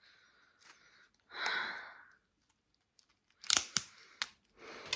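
A strip of paper rustling and being torn with the teeth, with a few sharp rips about three and a half seconds in.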